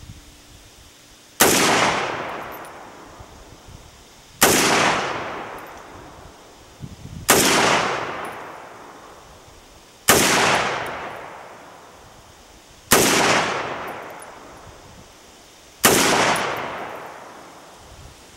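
PSL-54c semi-automatic rifle in 7.62x54R firing six single shots about three seconds apart, each a sharp crack followed by a long fading echo.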